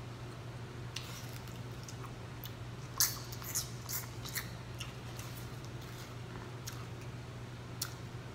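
Eating sounds: scattered sharp clicks and smacks of chewing and of a fork picking at fried fish in a foam takeout container, the loudest about three seconds in, over a low steady hum.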